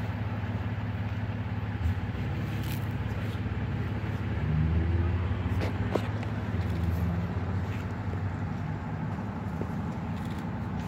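A vehicle engine idling with a steady low drone, a little louder for a few seconds in the middle, with a few light clicks and knocks as the unpowered 1959 Cadillac Coupe de Ville is pushed by hand and rolls slowly out of the garage.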